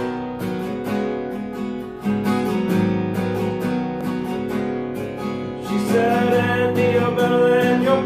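Acoustic guitar strummed in a steady rhythm, chords ringing: the instrumental introduction to a song, before the singing comes in.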